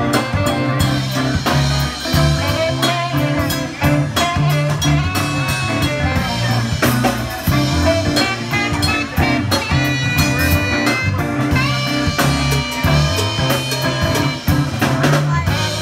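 Live soul band playing: electric guitar, bass guitar, a steady drum-kit beat and saxophone.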